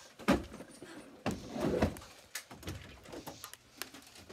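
A string of knocks, thumps and rustles close to a handheld phone camera, loudest about a third of a second in and again in a cluster around the middle.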